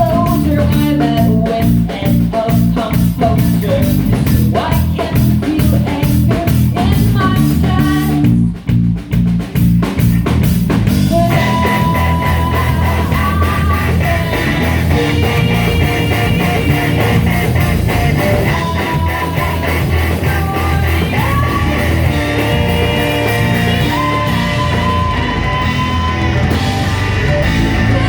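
Rock song played by a band, with drums, electric guitar and singing. The sound thins briefly about eight seconds in, then the full band comes back with long held guitar or vocal lines.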